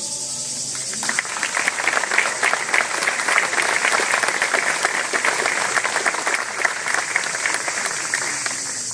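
Audience applauding. The clapping breaks out about a second in, as the last sung note fades, and begins to die down near the end.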